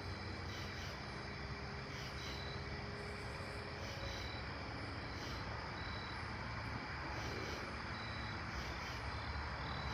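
Night insects chirping in a steady rhythm, about two high chirps a second, over a steady low hum.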